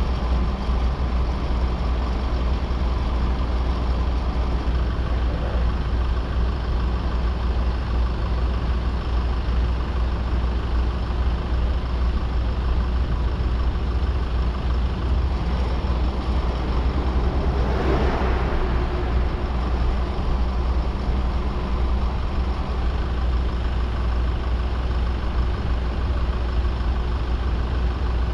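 Steady low rumble of a running vehicle, with a short swell of noise about eighteen seconds in.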